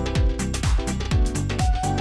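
Electronic background music with a steady kick-drum beat, about two beats a second, over held synth chords.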